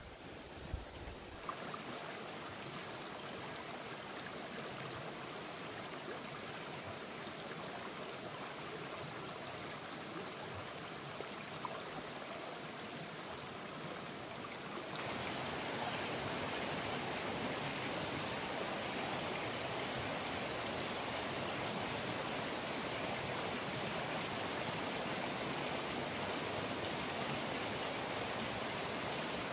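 A forest stream running, a steady rush of water that becomes louder about halfway through.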